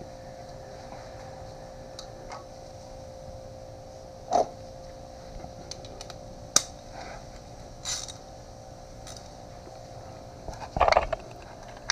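A few light clicks and knocks of hand tools being handled over a steady background hum; near the end, a louder clatter as a socket wrench is fitted onto the motorcycle's oil drain plug.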